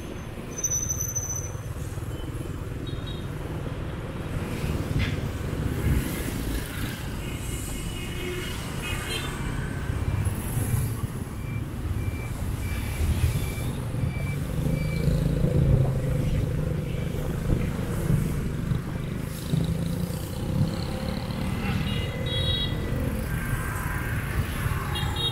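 Steady street traffic: motorbike and car engines running, with continuous road rumble.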